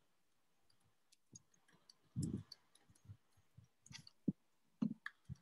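Faint, scattered clicks and ticks, with a brief low-pitched sound about two seconds in.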